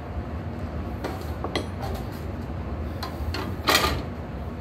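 Metal number plates being handled and laid down on a workbench: a few light clinks and taps, then one louder clatter near the end, over a steady low background hum.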